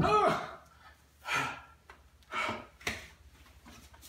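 A man grunting and huffing with effort as he wrestles a tight compression rashguard on. One loud grunt comes at the start, then three shorter breathy huffs.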